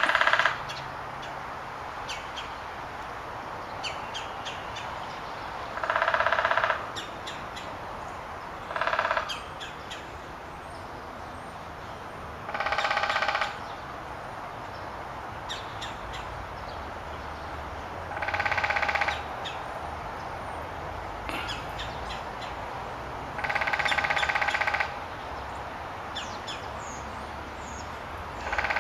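Woodpecker sounds: seven short harsh bursts, each about half a second to a second long, coming several seconds apart over a steady background hiss, with faint high chirps in between.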